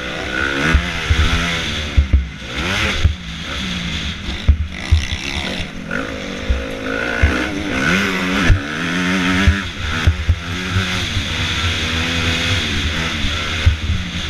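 Motocross bike engine heard from an onboard camera, its pitch rising and falling again and again as the rider accelerates, shifts and backs off, with frequent low thumps.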